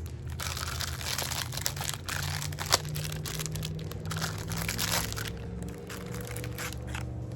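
Plastic packaging crinkling and crackling as a new oil filter housing seal is unwrapped, in irregular sharp crackles.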